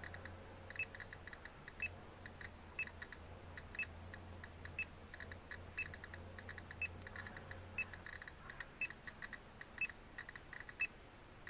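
GQ GMC-320 Plus Geiger counter clicking irregularly, several clicks a second, each click a detected count from a uranium-bearing rock, at around 400 counts per minute. A short beep sounds about once a second, the counter's alarm at a reading over its limit.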